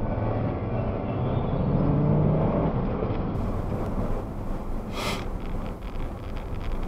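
A motor vehicle running, with low engine tones that drift slightly up and down, and a brief hiss about five seconds in.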